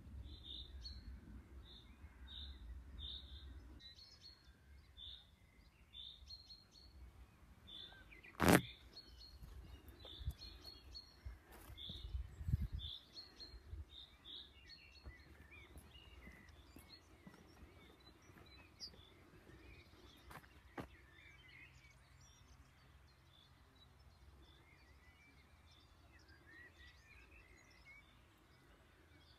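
Songbirds calling in open countryside: a high chirp repeated about twice a second for the first several seconds, then scattered fainter calls. A single sharp click about eight and a half seconds in, with low rumbles of wind or handling at the start and around twelve seconds.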